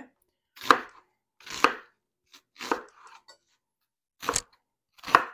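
Chef's knife chopping an onion on a plastic cutting board: five separate cuts, about one a second, each ending in a knock of the blade on the board.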